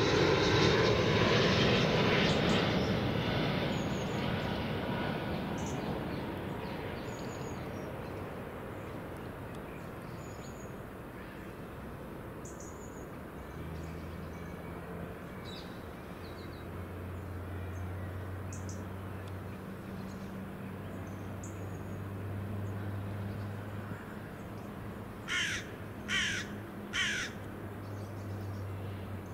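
A broad rushing noise, loudest at the start, fades away over the first eight seconds or so, and a steady low drone sets in about halfway. Near the end a crow caws three times in quick succession.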